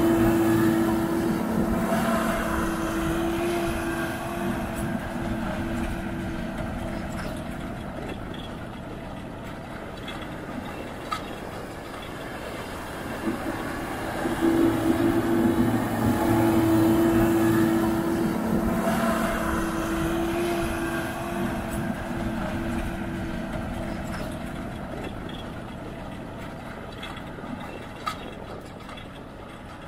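AGCO White 6215 tractor's diesel engine running steadily under load as it pulls a John Deere 714 Mulch-Tiller chisel plow. The engine is loud as the tractor passes close and fades as it moves away, then swells again about halfway through and fades once more toward the end.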